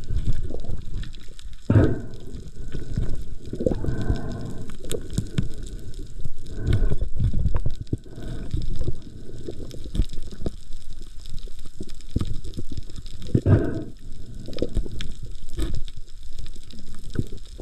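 Muffled underwater sound picked up through a camera's waterproof housing: a constant low rumbling and knocking as a speared fish is held and knifed, with a few short droning tones here and there.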